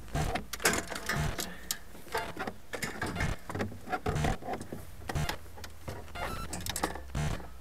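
Fishing rods and reels being handled and packed into a car boot: irregular clicks, knocks and rattles as the rod blanks and reels bump against each other and the boot, over a low steady hum.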